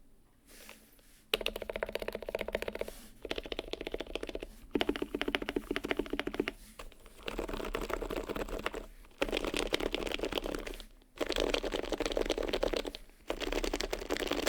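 Topre keyboard (HHKB Pro Hybrid internals with 55 g domes in a heavy Enigma Heavy Grail housing, HiPro keycaps) typed on quickly, in about six runs of rapid keystrokes separated by short pauses.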